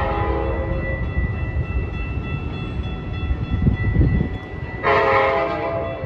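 Metra locomotive air horn sounding a multi-note chord: one blast trails off about half a second in, and another short blast of about a second comes near the end, over a low rumble of the approaching train that swells about four seconds in.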